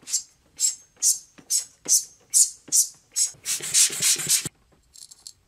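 Hand rubbing strokes across a wooden sharpening block, about eight short hissy strokes at roughly two a second, then one longer rub lasting about a second. Faint light rattles follow near the end.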